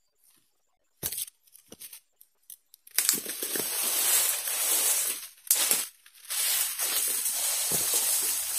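A few crackling steps on dead palm fronds, then from about three seconds in a long cut oil palm frond is dragged and lifted through dry fronds and undergrowth, its leaflets rustling and scraping, with a brief pause part way through.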